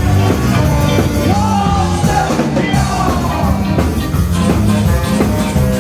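Live ska band playing, with singing over a steady beat.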